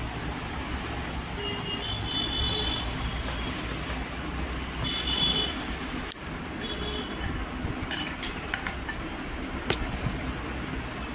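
Steady road-traffic noise with a few short horn toots. In the last few seconds a steel spoon clinks several times against a glass serving bowl.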